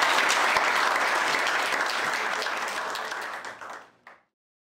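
Audience applauding, the clapping fading away and cutting off to silence about four seconds in.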